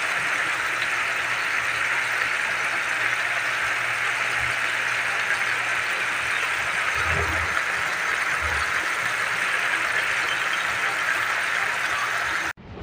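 Pechay and sardine soup boiling in a pan: a steady bubbling hiss, with a couple of soft low thumps partway through. It cuts off abruptly near the end.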